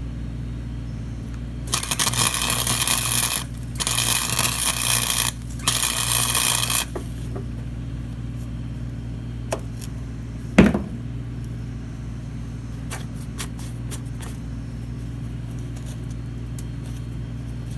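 Three short bursts of welding-arc crackle, tack welds joining a scrap-steel patch to a worn-through steel lawnmower deck, over a steady low electrical hum. A single sharp knock about ten and a half seconds in.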